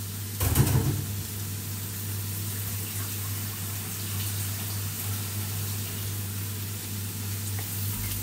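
Carrots and baby corn sizzling steadily in hot oil in a nonstick wok, over a steady low hum. A brief louder noise comes about half a second in.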